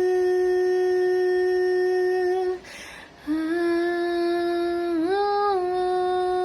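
A woman's unaccompanied voice holding long, steady humming notes, with a breath taken about two and a half seconds in. The second note lifts slightly in pitch around five seconds and settles back.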